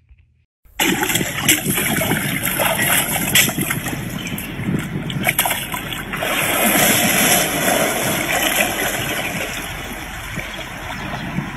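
Water splashing and churning as a hippopotamus rears up and plunges back into a pool, starting about a second in.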